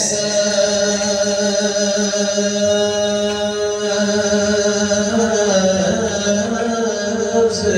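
Devotional chant sung by one voice through a loudspeaker, holding one long note, then moving to a new pitch about five seconds in.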